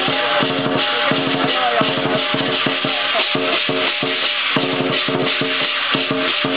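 Chinese lion-dance percussion: a drum struck in a fast, steady beat, with cymbals and gong ringing along on every stroke.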